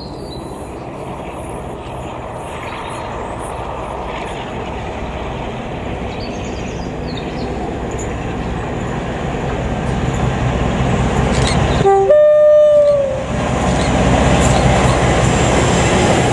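Class 47 diesel locomotive approaching, its Sulzer twelve-cylinder engine rumbling and growing steadily louder. About twelve seconds in it sounds its two-tone horn: a short low note, then a longer higher note, about a second and a half in all.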